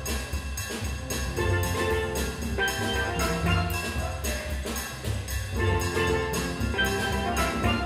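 Steel drum band playing: several steelpans struck in a quick, even rhythm, with pitched ringing notes over a bass line.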